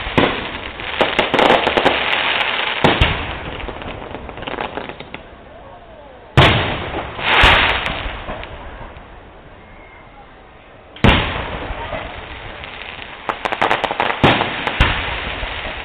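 Aerial firework shells bursting in the sky: several loud bangs a few seconds apart, with stretches of dense crackling between them.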